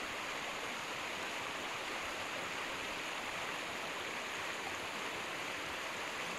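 Steady rushing of a mountain stream, an even, unbroken noise with no distinct events.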